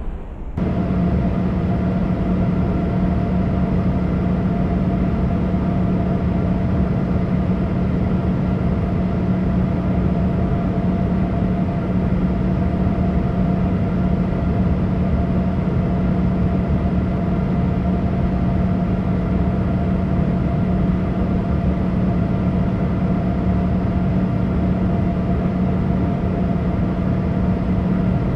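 Steady cabin drone inside a Boeing 787: engine and airflow noise with a constant low hum and a fainter higher tone. It sets in abruptly just after the start.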